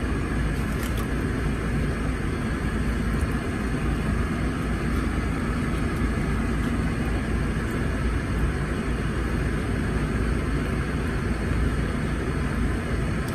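Steady low vehicle rumble heard inside a car's cabin, with a few faint clicks.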